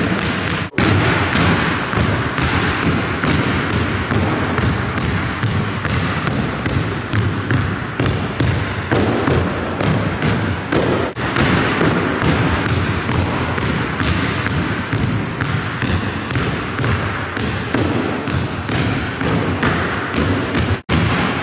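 Many basketballs being dribbled at once, a dense, continuous patter of overlapping bounces.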